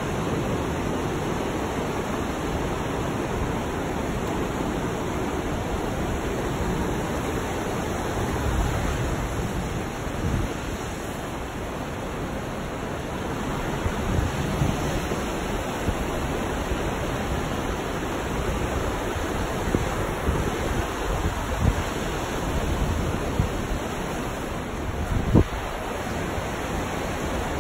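Steady rushing of the James River's rapids below, mixed with wind blowing on the microphone, with a few short low wind buffets near the end.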